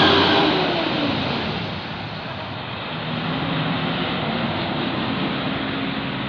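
Tour bus engine passing close by, its pitch dropping and fading as it goes away. About three seconds in, a second heavy engine comes in with a steady hum over road noise.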